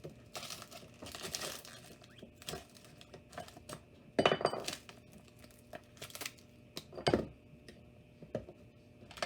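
Broken phone screen glass and layers being scraped and pried off an iPhone 8 with a sharp tool: crackling, small clicks and scratches, with louder scrapes about four seconds and seven seconds in.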